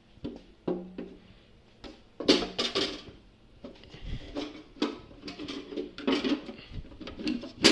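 Parts of a commercial orange juice machine being handled and fitted back into place: a series of irregular clicks and knocks, with the loudest cluster about two seconds in.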